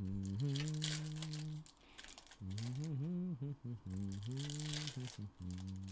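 A man humming a tune in low, held notes, with the foil wrappers of trading-card packs crinkling and tearing as they are ripped open.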